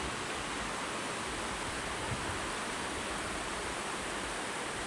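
Waterfall water rushing steadily over rock cascades.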